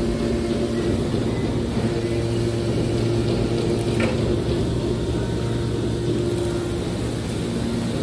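Hydraulic scrap-metal baler's power unit running with a steady hum, higher tones coming and going, as the ejector cylinder pushes a compressed bale of metal turnings out of the discharge door. A single short click about halfway through.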